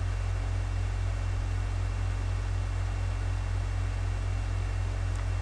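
Steady low electrical hum with an even hiss over it, holding level without change: the background noise of the voice microphone's recording chain.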